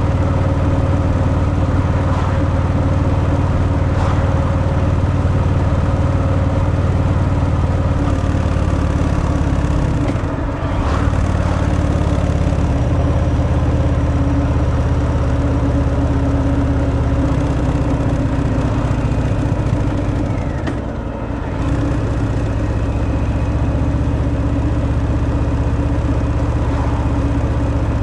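Harley-Davidson Fat Boy's Milwaukee-Eight 114 V-twin through its stock exhaust, heard from the rider's seat while cruising at a steady throttle. Twice, about ten seconds in and again about twenty-one seconds in, the engine note dips briefly and comes back.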